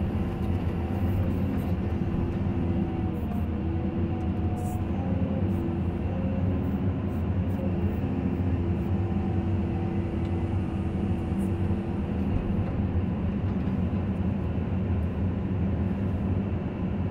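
Caterpillar 320 hydraulic excavator's diesel engine running steadily under load, heard from inside the cab as it digs and swings a bucket of soil. A wavering whine rides over the engine drone and fades out about two-thirds of the way through.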